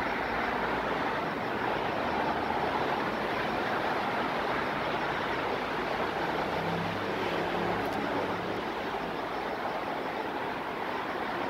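Steady outdoor rushing noise with no clear single source, joined by a faint low hum from about halfway through for a few seconds.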